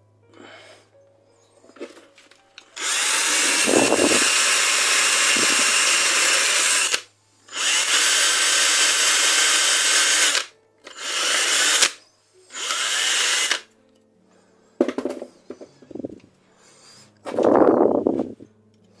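Aerosol can of WD-40 sprayed onto the secateurs in four hissing bursts: a long one of about four seconds, one of about three seconds, then two short ones. Short, softer handling noises follow near the end.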